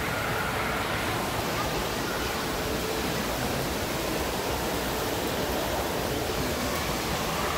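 Steady rushing-water din of an indoor water park hall, an even wash of noise without breaks.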